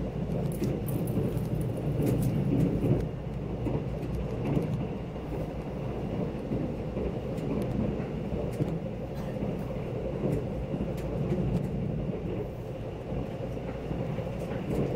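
KTX train running at speed, heard from inside the passenger carriage: a steady low rumble with scattered faint clicks.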